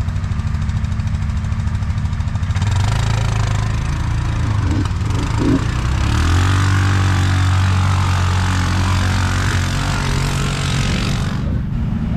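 ATV engine idling with a steady pulsing note; about three seconds in, a louder engine and a hiss join in, the engine pitch shifting up and settling, until the hiss cuts off abruptly near the end.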